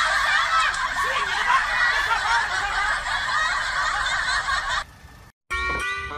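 Many people laughing together for about five seconds, then cutting off suddenly. After a brief silence, music starts near the end.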